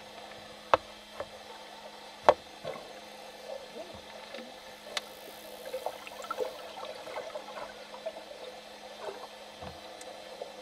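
Underwater sound around a pod of bottlenose dolphins: sharp clicks, the loudest about two seconds in, and a run of short squeaks and chirps through the middle, over a steady low hum.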